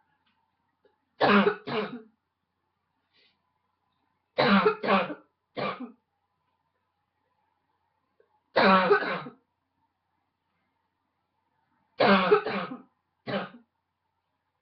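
A woman's harsh, barking cough in about four short bouts of one to three coughs each, with a few seconds of silence between bouts.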